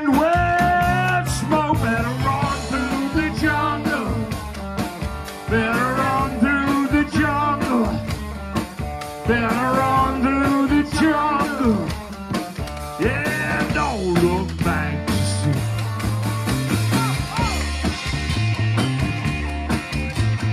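Live rock band playing a song: electric guitar, bass guitar and drum kit, with singing over most of the stretch and the singing giving way to instruments alone for the last few seconds.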